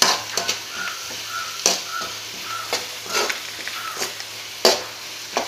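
Vegetables sizzling in hot oil in an aluminium kadai while a metal ladle stirs and tosses them, scraping and knocking against the pan several times.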